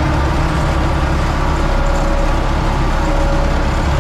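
Universal 650 tractor's four-cylinder diesel engine running steadily under load while pulling a row-crop cultivator, heard from inside the cab.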